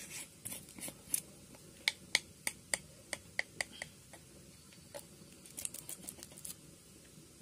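Light, irregular clicks and taps of a spoon against spice containers as spices are measured out: a quick run of about eight clicks around two to four seconds in, and another cluster about six seconds in.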